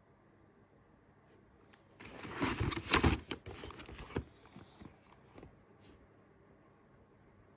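Packaging being handled and opened: a burst of rustling and crinkling lasting about two seconds, followed by a few small taps and clicks.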